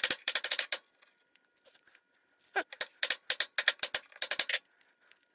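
A vacuum tube's base being knocked repeatedly against a particle-board desk to loosen it from the glass envelope: a quick run of rapid knocks, then a longer run of rapid knocks about two and a half seconds in.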